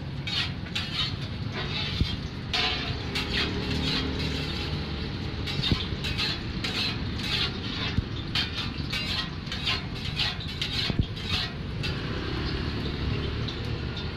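Martabak telur frying in oil on a wide iron pan, sizzling and crackling, with a few sharp clicks of the metal spatula and turner against the pan. A steady low rumble runs underneath.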